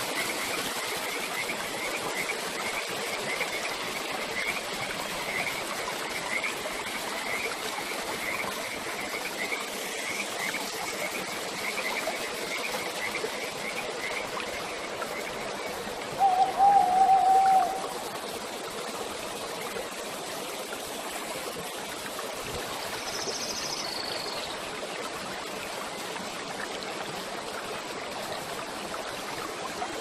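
Water gushing from a rock fountain spout and splashing into a pool, a steady rush. A rapid run of chirps, about two a second, carries through the first half, and a louder warbling whistled call lasts about a second and a half just past the middle.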